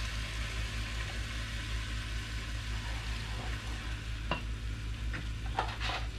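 Chicken pieces sizzling as they sauté in oil in a stainless steel pot, over a low steady hum. A wooden spoon scrapes against the pot a few times in the second half as the chicken is stirred.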